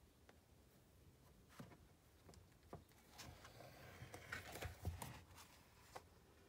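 Faint paper rustle and a few soft ticks as a picture-book page is turned by hand, the rustle busiest about four to five seconds in.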